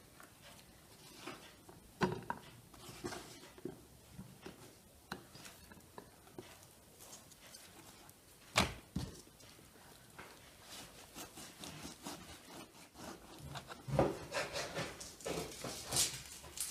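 Raw beef being handled on a wooden cutting board: scattered soft knocks, a single heavy thud about eight and a half seconds in, then from about fourteen seconds a knife cutting through the meat against the board in quick, rasping strokes.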